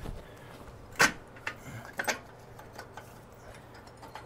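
A few sharp metal clinks, the loudest about a second in, as the exhaust head-pipe flanges are worked loose and down off the cylinder-head exhaust studs of a Harley Twin Cam.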